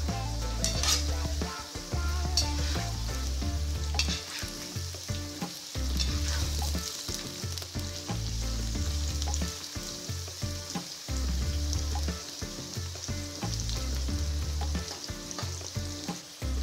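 Potato slices, onion and green pepper sizzling in hot oil in a wok while a metal spatula stirs them, scraping and clicking against the pan now and then. Low steady tones that shift every couple of seconds sit underneath.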